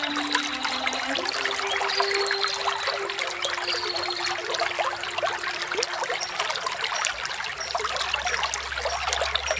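Small waterfall: water splashing and trickling steadily.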